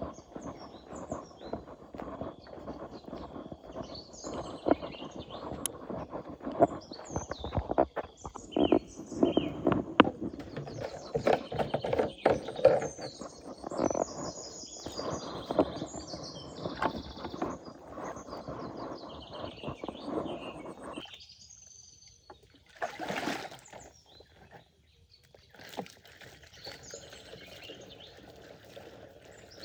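Close, irregular rustling and knocking handling noises with birds chirping over them. About 21 seconds in the handling noises stop abruptly, leaving quieter birdsong and one short burst of sound.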